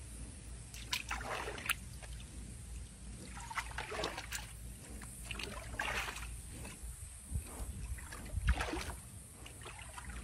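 Water sloshing and lapping in a small tank pool as a jaguar moves through it, with irregular soft swishes and splashes over a low steady hum.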